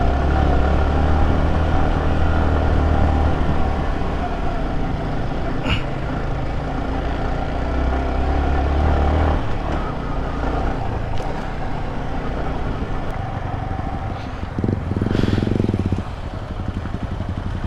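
Motorcycle engines running, with a louder, rougher burst of engine sound about fifteen seconds in.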